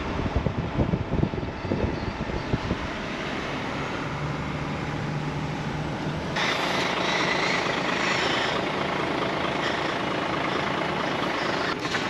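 Truck driving on a dirt road, heard from inside the cab: the engine runs under continuous road rumble, with bumps and knocks over the first few seconds. A brighter hiss comes in about six seconds in and holds.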